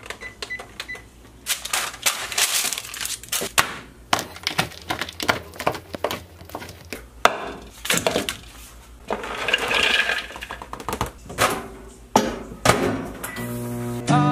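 Oven control-panel keypad beeping lightly as its buttons are pressed, then a run of sharp clattering, tapping and clinking from dishes, a glass measuring jug and utensils being handled. Music starts right at the end.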